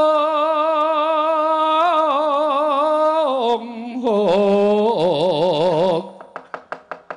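A dalang's voice singing a suluk in long held notes with a wide vibrato. It breaks off about three and a half seconds in, then comes back on a lower held note. About a second before the end the singing stops and even, rapid knocks of the dalang's wooden cempala take over, about five a second.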